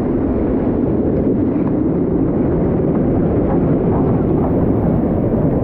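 Steady rush of canyon stream water, a dull, even roar with no break.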